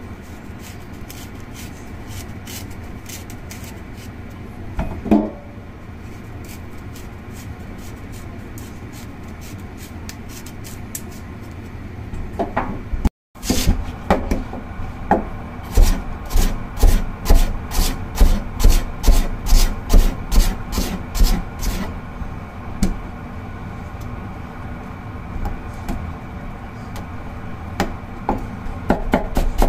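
Kitchen knife peeling a large daikon radish, a soft steady scraping. In the second half the knife chops through daikon onto a plastic cutting board in a loud, even run of knocks, about two a second.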